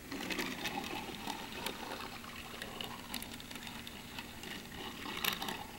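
Small wheels of a die-cast Hot Wheels Mustang dragster rolling and scuffing over a wooden surface as it is pushed by hand, with scattered light clicks and taps, a little louder about five seconds in.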